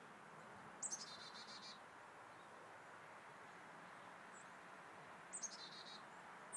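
A small songbird singing twice, each song a short high note followed by a rapid trill about a second long, over a faint steady outdoor hiss.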